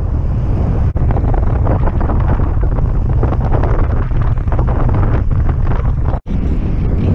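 Heavy wind buffeting the camera microphone while riding a bicycle at speed on a tarmac road. It cuts out briefly about a second in and again near the end.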